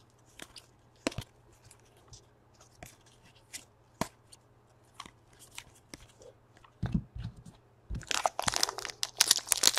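Trading cards being flicked through in the hands, a few soft ticks, then from about eight seconds in the loud crinkling of a card pack wrapper being handled and torn open.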